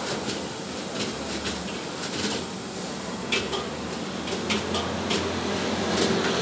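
Dishes and metal utensils clinking and clattering at a street food stall: about ten sharp, irregular clinks over a steady background hiss.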